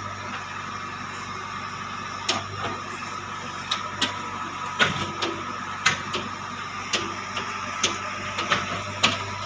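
JCB 3DX backhoe loader's diesel engine running steadily, with a series of sharp, irregular knocks starting about two seconds in.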